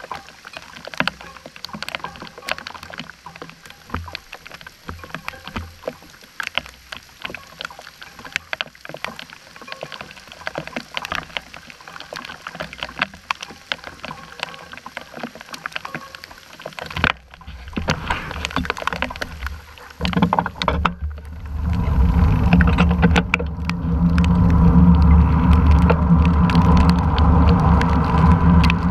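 Heavy rain: a dense run of sharp ticks from raindrops striking the camera's housing, over a faint rain hiss. About twenty seconds in, a loud steady rumble of wind and wet-road noise takes over as the bicycle carrying the camera gets moving.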